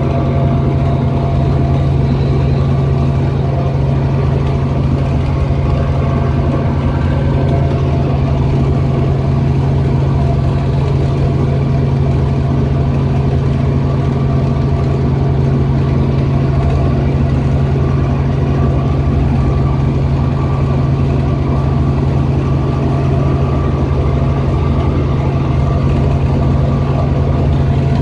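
Robinson R44 helicopter heard from inside the cabin while climbing out after takeoff: its piston engine and rotors make a loud, steady drone with a strong low hum.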